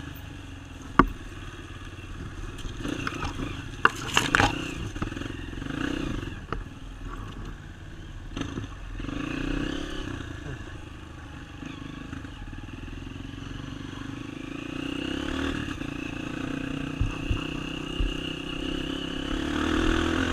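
Off-road motorcycle engine running on a trail, its revs swelling and easing off over and over, with sharp knocks and rattles from the ride, the loudest about a second in and around four seconds in. Over the last few seconds the revs climb steadily.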